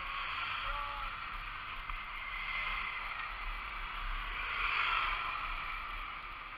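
Steady rush of wind over the microphone of a camera on a moving road bike, mixed with tyre noise on the tarmac, swelling briefly about five seconds in.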